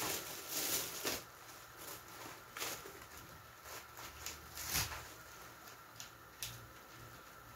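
Thin plastic carrier bag rustling and crinkling as lettuce is pulled out and its leaves handled, in several short bursts.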